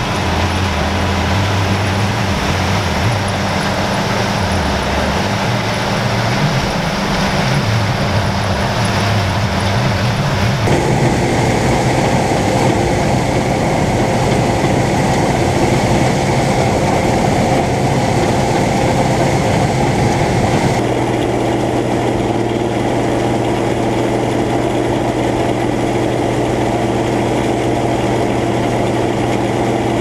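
1977 Gleaner M2 combine running while harvesting soybeans: a steady engine drone mixed with the noise of its header and threshing machinery. The sound changes abruptly about a third and two-thirds of the way through, as the view switches from outside the machine to close up on the header.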